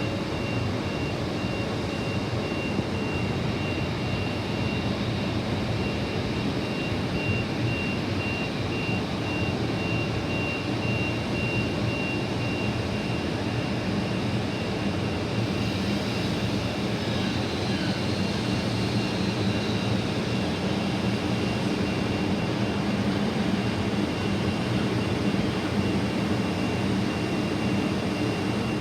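Steady mechanical drone of a train at a station, a low hum with a constant thin high-pitched whine over it.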